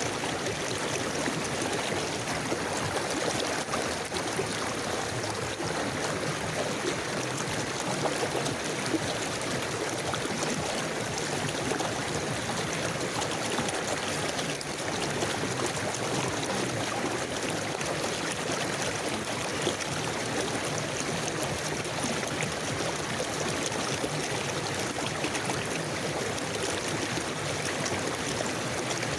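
River water flowing steadily over rocks, a continuous rushing and gurgling.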